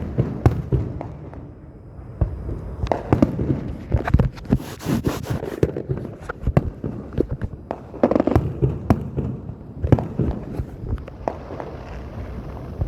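Fireworks display: a run of irregular bangs and crackling pops. They come thickest about three to five seconds in and again around eight to ten seconds.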